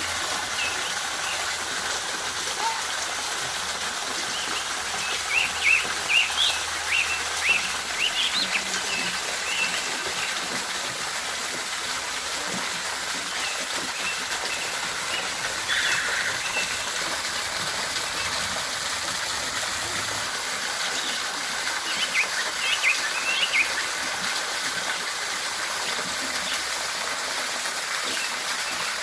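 Waterfall's water rushing steadily, with birds chirping over it in two short spells.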